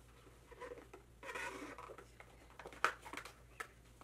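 Faint rustling and scraping of a cardboard gift box and its ribbon being opened by hand, with a few light taps in the second half.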